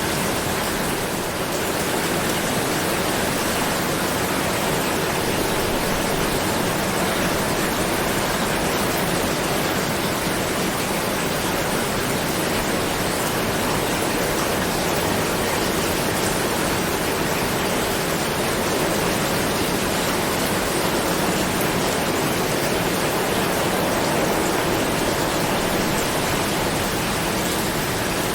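Steady heavy rain falling, a dense even hiss with no single drops standing out.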